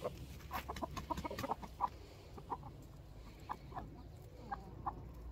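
Chickens clucking: short, scattered clucks from several birds, coming thickest in the first couple of seconds and thinning out after.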